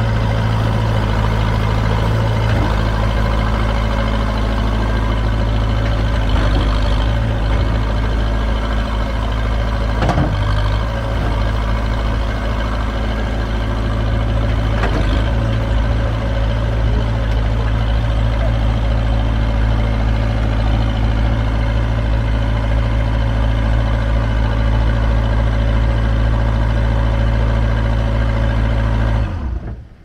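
Mauldin 1550-D asphalt paver's diesel engine running steadily at idle, with a few brief clanks from the machine.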